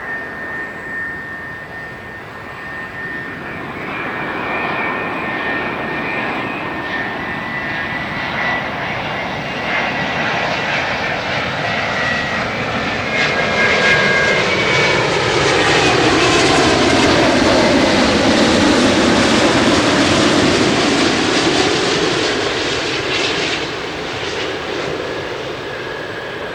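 Twin-engine jet airliner passing close by: the engine noise builds to a peak about two-thirds of the way through, the engine whine sliding down in pitch as it goes past, then fades.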